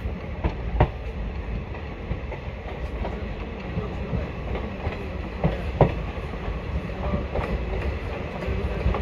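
Indian Railways passenger train coach running, heard from its open doorway: a steady rumble of wheels on rail with irregular sharp clacks over the rail joints.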